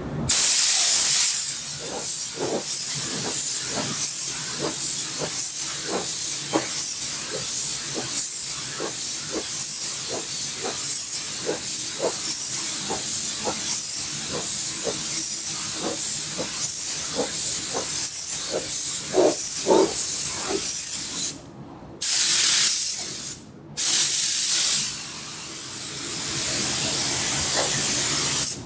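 Compressed-air gravity-feed paint spray gun hissing as it sprays paint, surging and easing in a regular rhythm of about one and a half times a second. It breaks off twice briefly about three-quarters of the way through.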